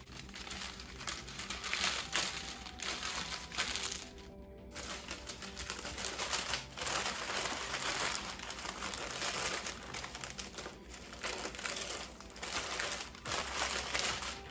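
Parchment paper crinkling and rustling as it is gripped, folded and pulled back around a baked cauliflower pizza crust, in uneven swells.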